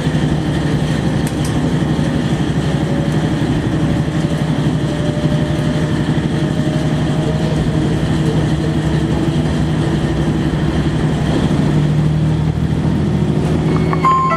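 Diesel engine of a KiHa 40 series railcar (DMF15HSA) running, heard from inside the passenger car, with a faint whine slowly rising in pitch through the first half. Right at the end the first notes of the JR Shikoku onboard chime begin.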